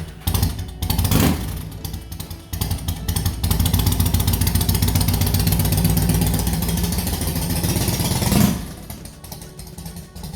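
2006 Yamaha Road Star's V-twin engine just after starting: revved in two short blips, then running loud and steady for about five seconds before falling away sharply near the end.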